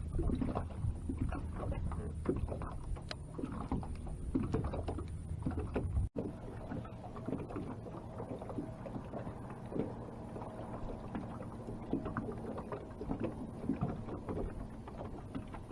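Small fishing boat sitting on the water: irregular water lapping and slapping at the hull, with scattered small knocks and handling noises over a faint steady low hum. The sound drops out for an instant about six seconds in.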